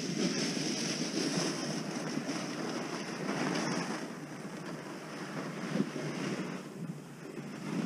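Wind buffeting the microphone: an uneven rumble with some hiss that eases off in the second half.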